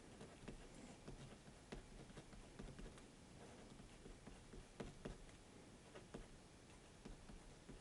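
Faint, irregular ticks and light scratches of a 0.7 mm HB mechanical pencil lead writing letters on paper.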